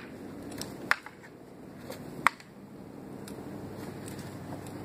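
Carved wooden practice swords clacking together in sparring: two sharp wooden knocks, about a second in and again just after two seconds, with a few fainter taps between.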